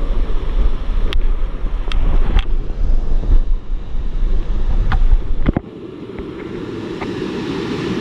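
Wind buffeting the microphone over a steady rushing hiss, with a few sharp clicks. The low buffeting cuts off abruptly about five and a half seconds in, leaving the steady hiss.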